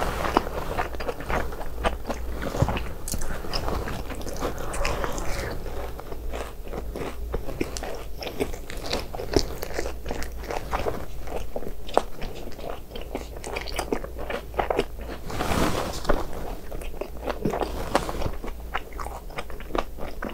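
Close-miked biting, crunching and chewing of a fried BHC Bburing hot dog, with many small crisp crackles and a louder crunch about 15 seconds in.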